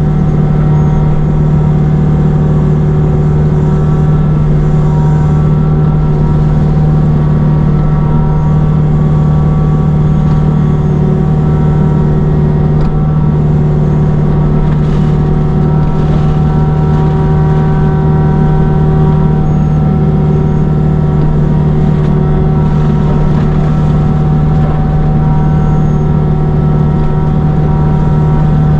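Forestry mulcher's engine running steadily under load, a constant loud drone with a strong low hum that holds level throughout.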